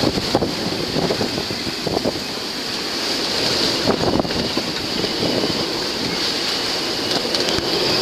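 Strong wind and breaking waves rushing past a sailboat in a rough, gale-driven sea, with irregular surges of water and wind buffeting the microphone.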